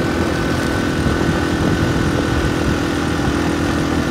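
A moving motor vehicle's engine drones steadily under continuous road and rushing-air noise while travelling at a constant speed.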